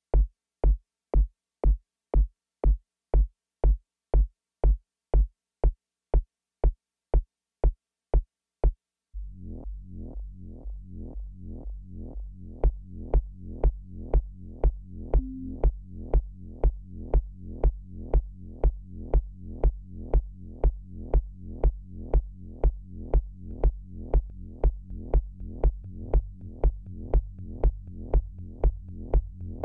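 Electronic music from a software synthesizer and drum machine. A kick drum repeats about twice a second on its own, and about nine seconds in, after a brief gap, a synth bass line of quick repeating notes joins the beat.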